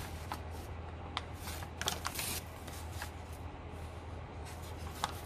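Sheets of crumpled, hand-dyed copy paper rustling and crinkling as they are handled, with a few short crisp crackles, over a faint steady low hum.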